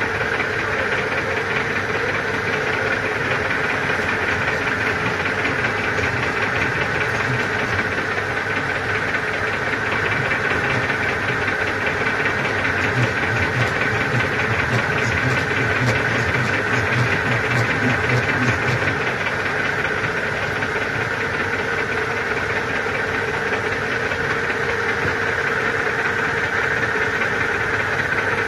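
Metal lathe running with a shock absorber body spinning in its chuck while a cutting tool is fed in to cut the tube open: a steady mechanical whir and rattle with a constant whine. A deeper rumble swells from about twelve to nineteen seconds in.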